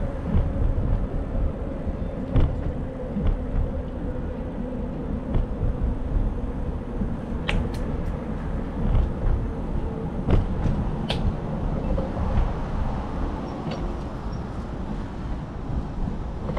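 Steady low rumble of wind and road noise while riding a bicycle through city streets, with a few sharp clicks about halfway through.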